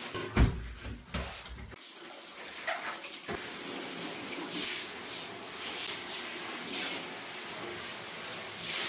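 Water spraying and splashing steadily, with a few knocks in the first two seconds.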